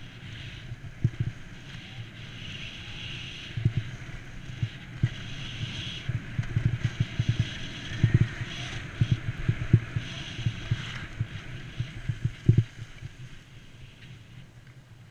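Skis hissing and scraping over packed snow at speed, with wind rumbling on a body-worn camera's microphone and sharp low thumps scattered through the run. The sound fades near the end as the skier slows.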